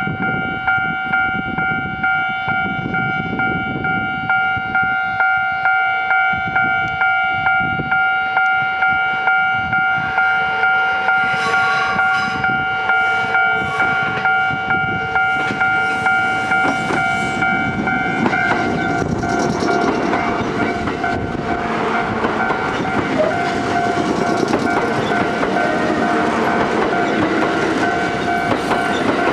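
Japanese level-crossing warning bell ringing in a steady, even rhythm while a Kintetsu 12200-series and 22600-series limited-express electric train approaches and passes. Its wheels click over the rail joints from about a third of the way in, and its running noise is loudest over roughly the last ten seconds.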